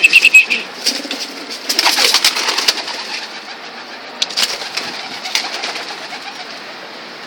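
Domestic pigeons cooing amid a series of sharp clicks, with a noisier flurry about two seconds in.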